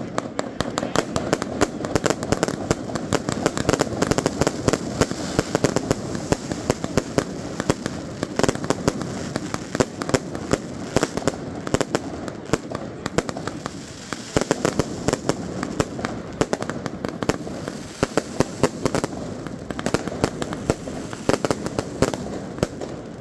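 Fireworks and firecrackers going off without pause: a dense run of sharp bangs and crackles, several a second, over a constant background din.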